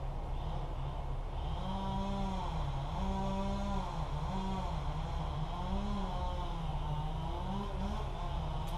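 An engine running steadily under a low rumble, its pitch repeatedly dipping and rising by a small amount.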